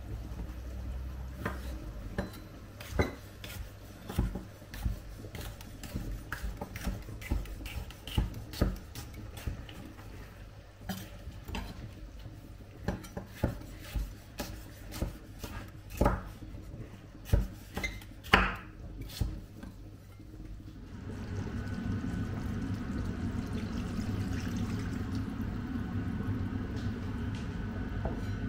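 Cookware and utensils clinking and knocking, with many separate clinks, as a curry is cooked. About two-thirds of the way through, a steady low rumble sets in and continues.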